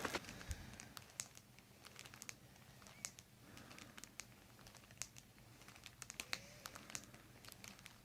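Near silence with faint, scattered crinkles and small clicks: light rustling from a person shifting on a treatment table.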